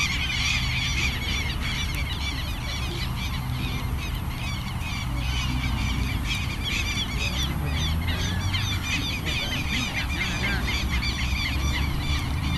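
A dense chorus of many birds calling at once, short overlapping calls that never stop, over a low rumble.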